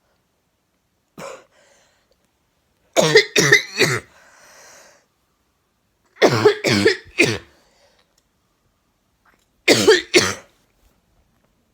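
A woman with a chronic cough coughing in three fits a few seconds apart, each a quick run of two or three coughs, after a faint short cough about a second in.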